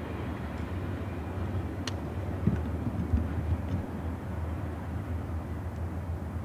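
Double-stack intermodal freight train heard from a distance as it moves away, a steady low rumble of the train running on the rails. A brief sharp click about two seconds in, and a couple of low thumps soon after.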